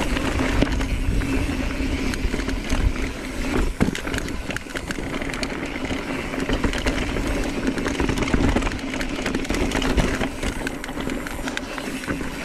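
Mountain bike rolling over rough trail: tyres crunching and the bike rattling and knocking over bumps, with wind rumbling on the microphone.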